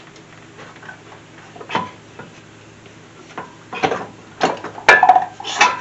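Metal clunks and knocks as a front strut assembly is worked loose and pulled out of the wheel well: one knock about two seconds in, then a run of sharper clanks over the last two seconds, the loudest near the end.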